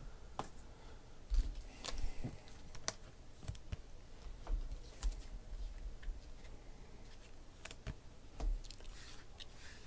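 Panini Prizm trading cards being handled and sorted by hand: scattered light clicks, taps and short slides of card against card at irregular moments.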